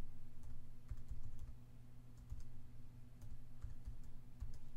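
Typing on a computer keyboard: irregular key clicks, a few at a time, over a steady low hum.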